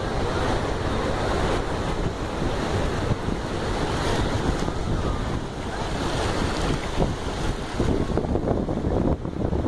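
Shallow ocean surf washing over the beach, with wind noise on the microphone.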